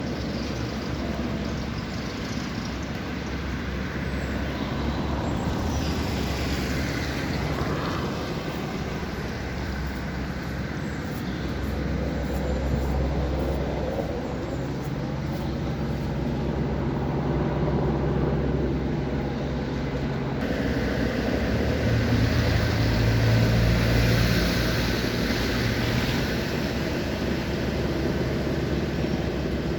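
Motor engines running with a hum that rises and falls, over a steady outdoor rumble, loudest in the second half.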